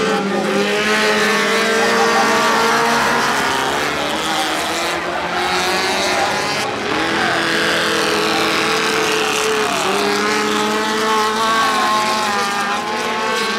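A pack of small dirt-track race cars racing past together, several engines at once revving up and falling back as they go through the turn.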